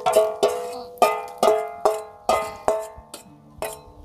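Metal saucepan rapped over and over with a spatula to knock the last batter out, the pot ringing briefly after each of about nine sharp knocks, two or three a second.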